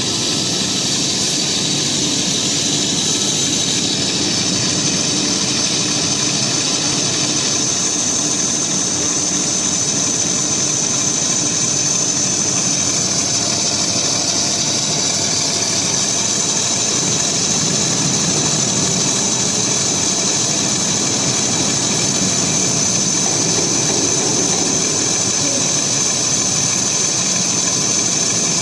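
Tube roll forming machine with laser welding line running steadily: a constant mechanical hum overlaid by a steady high whine.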